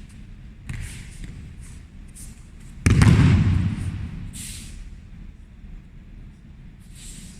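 A heavy thud about three seconds in, with a short rumbling decay: a body landing on the training mat from an aikido throw or breakfall. Brief rustling and shuffling sounds come before and after it.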